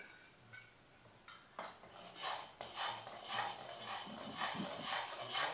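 Steel spoon stirring thick milky kheer in an aluminium kadhai, scraping the pan in rhythmic strokes about two to three a second, starting about two seconds in.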